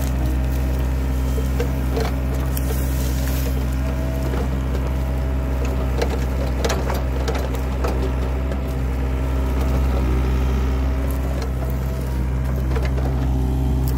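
Excavator's diesel engine running steadily, with sharp cracks and scrapes from the skeleton bucket tearing udo root clumps out of the soil, most of them about halfway through.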